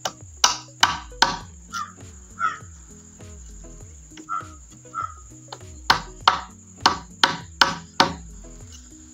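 Hammer driving a steel chisel into a green bamboo tube, cutting a hole in the wall of a bamboo cannon: sharp knocks, three in quick succession about half a second in, then a run of six more from about six to eight seconds in.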